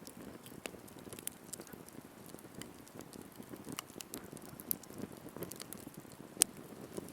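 Wood campfire crackling, with irregular small pops over the soft rush of the flames and one sharp, loud pop a little over six seconds in.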